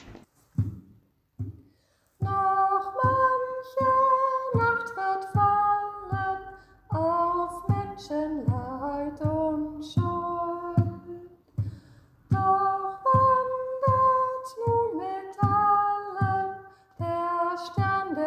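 A woman singing a slow song with instrumental accompaniment. Two instrument notes lead in, and the voice enters about two seconds in over a steady pattern of struck low notes.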